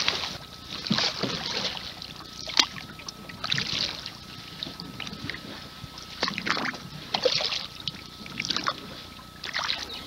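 Paddle strokes in the river beside a small boat: short splashing swishes, one every second or so, at an uneven pace.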